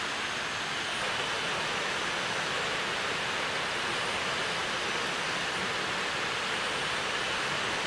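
Steady rushing of a river, an even hiss of flowing water with no change in level. A faint, thin, high tone comes and goes above it.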